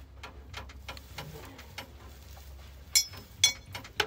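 Gear being handled and set down inside an aluminium horse trailer's side room: light knocks and rustles, with two sharp clanks about three and three and a half seconds in. A low steady hum runs underneath.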